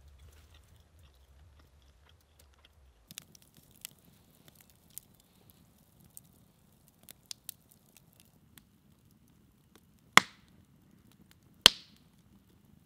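Wood campfire crackling, starting about three seconds in, with scattered small pops and two loud sharp pops near the end.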